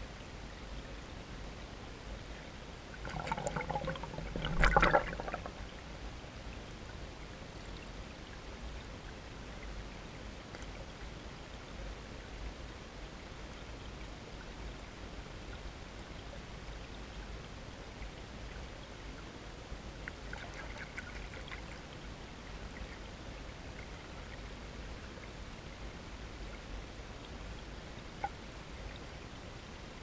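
Shallow stream water running steadily under ice, with a louder burst of water sound about three to five seconds in and a fainter one around twenty seconds. A single short tick near the end.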